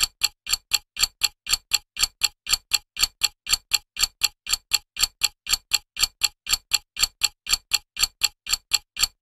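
Clock-ticking sound effect: sharp, evenly spaced ticks, about four a second, steady throughout.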